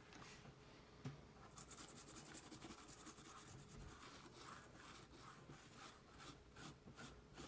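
Toothbrush scrubbing a keyboard circuit board wet with isopropyl alcohol, cleaning the traces. Faint, quick scratchy brush strokes pick up about a second and a half in.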